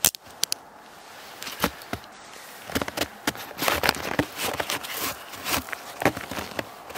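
Snowshoe bindings being fastened and the snowshoes shuffled on snow: an irregular run of sharp clicks, taps and crunches, busiest in the second half.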